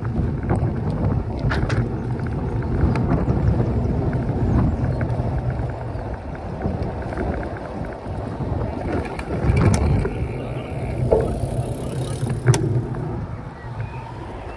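Riding a bicycle along a paved greenway: a steady low rumble of tyres and air on the camera, with a few sharp clicks and knocks, easing off near the end.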